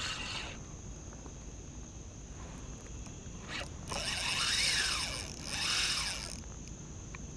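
Spinning fishing reel zipping in two short rasping bursts, the first about four seconds in and the second just after, as line runs on or off the spool.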